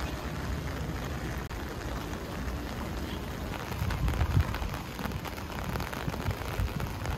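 Steady rain falling, heard from under an umbrella, with irregular low rumbling thumps that are loudest about four seconds in.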